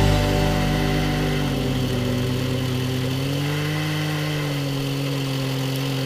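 Chainsaw mounted in a chainsaw mill running steadily under load as it rips lengthwise through a log; its pitch rises a little about three and a half seconds in, then holds.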